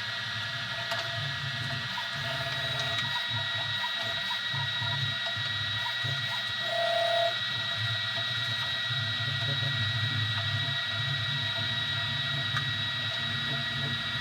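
Easythreed X2 desktop 3D printer running: its stepper motors hum in short, changing moves over a steady high whine, with a brief higher note about seven seconds in.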